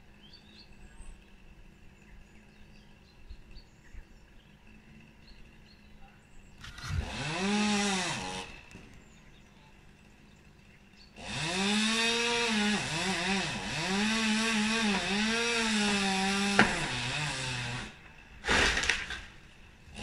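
Two-stroke chainsaw revving in bursts: a short rev that rises and falls about seven seconds in, then a longer run with its pitch dipping repeatedly as it cuts, dropping to idle, and one more brief rev near the end. Faint bird chirps are heard before the saw starts.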